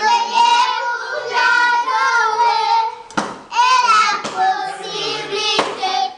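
Children's voices singing a worship song together, with sustained, wavering notes.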